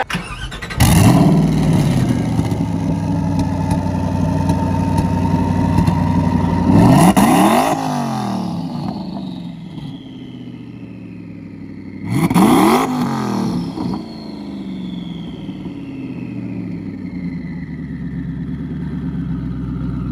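Hennessey Ford GT1000's twin-turbo V8 starting up about a second in and settling into a steady idle, blipped twice with short revs that rise and fall back, each followed by a falling whine.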